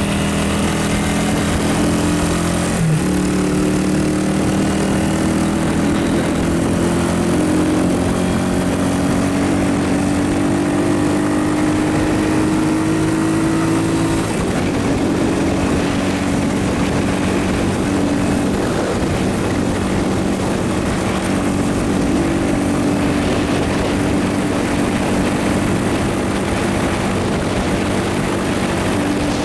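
Steady drone of a vehicle's engine at cruising speed, mixed with wind and road noise. The engine's pitch creeps slowly upward through the first half, with a brief knock about three seconds in.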